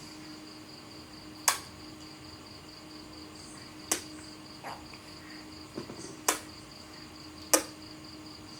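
Four loud, sharp clicks, one every one to two and a half seconds, with a few fainter clicks between them, over a steady, high, pulsing insect-like trill and a low hum.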